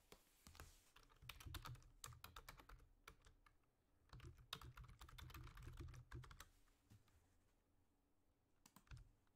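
Faint rapid typing on a computer keyboard: a dense run of keystrokes for about six seconds, then a pause and a few scattered key clicks near the end.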